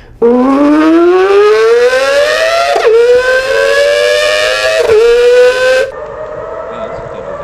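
A person vocally imitating a car accelerating through the gears: a loud pitched drone rises steadily, drops briefly twice as if shifting up and climbs again, then cuts off about six seconds in. A quieter, steady held tone follows near the end.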